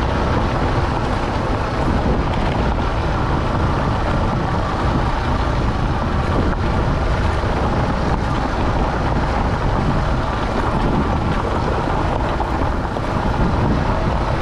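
Motorcycle being ridden at steady speed, its engine running under a steady rush of wind on the microphone.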